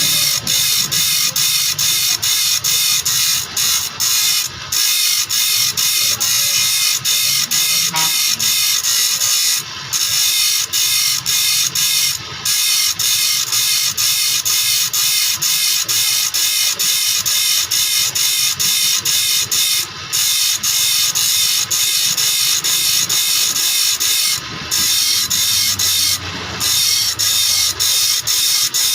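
Saw teeth being sharpened: a rapid, even run of rasping metal strokes, about three to four a second, broken by a few brief pauses.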